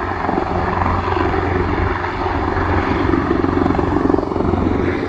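Rescue helicopter flying overhead, its rotor and engine noise a loud, steady rumble.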